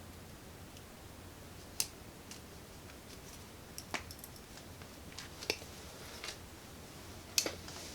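Scattered sharp clicks and snips of small hand tools working on thin electrical wire, such as cutters or strippers and a crimp connector being fitted. The loudest come about two seconds in and near the end.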